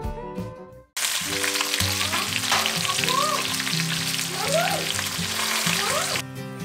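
Beef short ribs and marrow bones sizzling as they brown in a cast-iron potjie pot over a wood fire: a dense, even hiss that starts about a second in and cuts off near the end, with slide-guitar music underneath.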